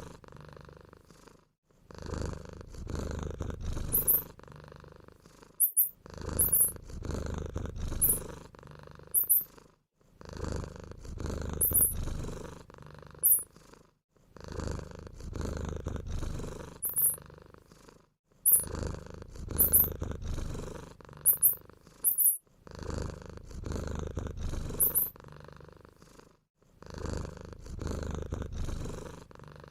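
Cat purring in repeating cycles of about four seconds with short gaps between them, overlaid with brief, very high-pitched squeaks like those of mice.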